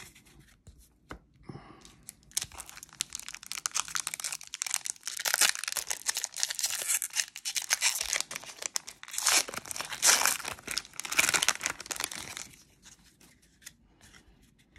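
Baseball card pack wrapper being torn open and crinkled by hand, a dense crackling that starts about two seconds in and stops about ten seconds later.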